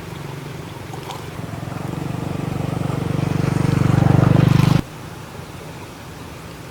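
A small engine running with a fast pulsing beat, growing steadily louder and then cutting off abruptly a little under five seconds in, leaving a steady hiss.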